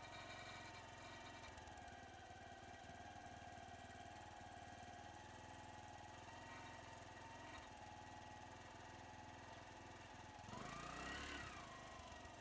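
Faint, steady hum of an idling vehicle engine. Near the end it swells briefly, rising and then falling in pitch.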